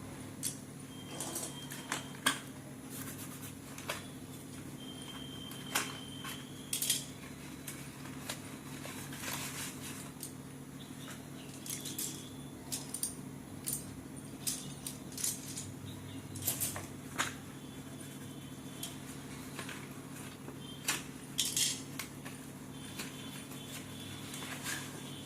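Slate pencils and their packaging being handled: scattered light clicks, taps and rustles, with a few brief squeaks, over a steady low hum.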